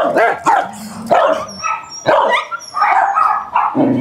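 A dog barking in a rapid string of short, loud barks, with a few yips among them. The barking comes from a dog being trained out of aggressive, dominant behaviour.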